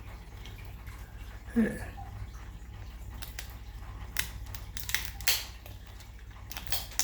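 Macaw cracking nut shells in its beak: a few sharp cracks and snaps in the second half, over a steady low hum. A brief low sound comes about a second and a half in.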